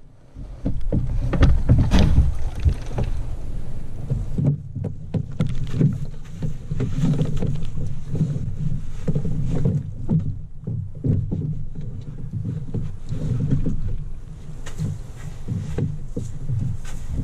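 A canoe being rolled over and hoisted onto a person's shoulders, then carried: irregular knocks, bumps and low rumbling of the hull, heard through a camera fixed to the canoe. The densest knocking comes about a second or two in.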